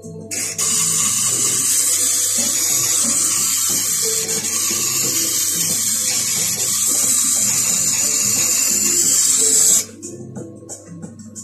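A steel carving gouge ground against the wet grindstone of a Tormek sharpener: a loud, steady hiss that starts just after the beginning and cuts off about ten seconds in. Quieter background music runs underneath.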